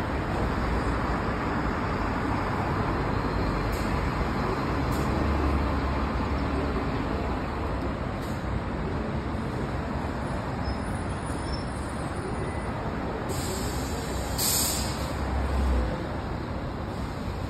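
Low-floor tram pulling away from the stop and running off along the rails, a steady rumble, with a short hiss near the end.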